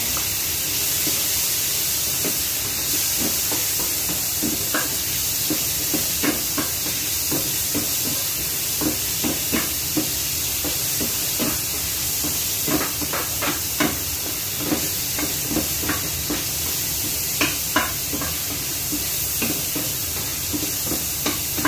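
Food sizzling steadily in hot oil in a pan on a gas stove, with a spatula scraping and tapping against the pan every second or so as it is stirred.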